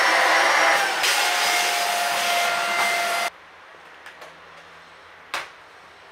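Handheld vacuum cleaner running with a steady whine, then cutting off abruptly about three seconds in. A single sharp knock follows about two seconds later.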